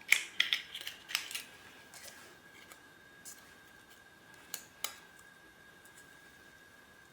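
Small sharp clicks and scraping rustles as the stainless steel mesh watch band and its packaging are handled. The clicks come in a quick cluster at first, then two isolated clicks about halfway through.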